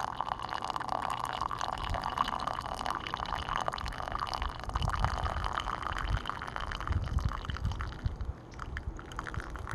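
Hot water trickling and dripping, with a steady hiss fading over the first six seconds or so and low rumbles about five and seven seconds in.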